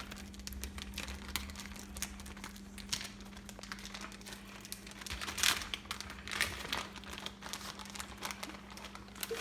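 Plastic bag of shredded cheese crinkling and rustling as it is handled, with irregular small crackles.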